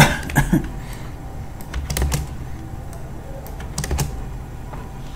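Irregular clicks of a computer keyboard and mouse, a sharp one at the start and others in quick pairs about two and four seconds in, over a faint low hum.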